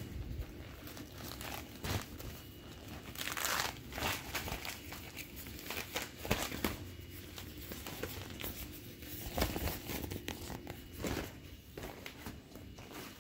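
Vinyl inflatable toys and plastic packaging crinkling and rustling as they are handled and shifted about, in irregular bursts with a few sharper clicks.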